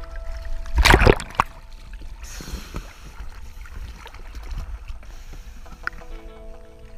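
A loud splash of water close to the microphone about a second in, then softer water sloshing against the side of an inflatable boat. Background music fades out at the start and comes back in near the end.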